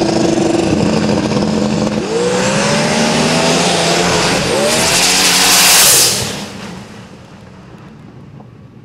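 Cadillac ATS-V drag car holding on the line, then launching about two seconds in and accelerating hard, its engine pitch rising twice as it goes up through the gears. Loudest around six seconds in, then it drops away sharply.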